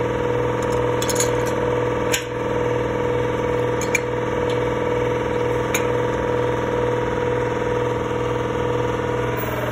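A steady mechanical hum with several fixed pitches, over which come a few light metal clicks as an adjustable wrench turns the nut on a concrete expansion anchor bolt.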